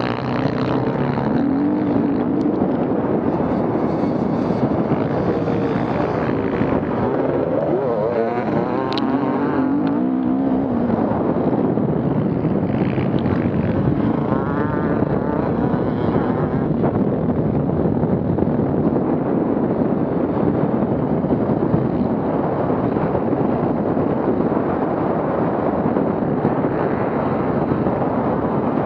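Off-road vehicle engines running continuously, their pitch rising and falling several times in the first half as they rev.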